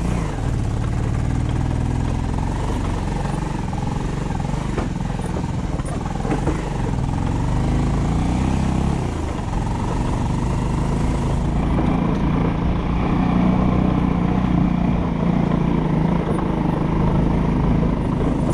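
A vehicle's engine running on the move, its pitch dipping about eight to nine seconds in and then picking up again, over a steady hiss whose upper part fades about halfway through.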